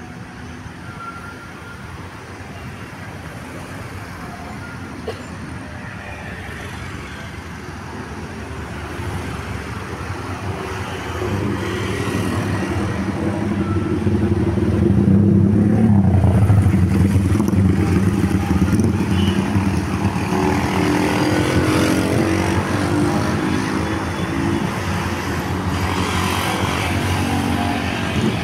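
A bus engine drawing nearer, growing steadily louder over about fifteen seconds, then running loud with its pitch sliding up and down.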